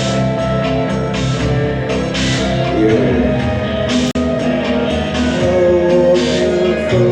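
Live electronic band music: sustained droning tones under a repeating rhythm of hissy percussive hits about once a second, with a momentary cut in the sound about four seconds in.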